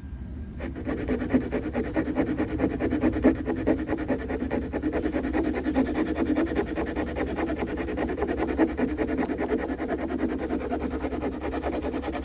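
Hand saw cutting through softwood, the teeth rasping steadily in continuous back-and-forth strokes; it starts about half a second in.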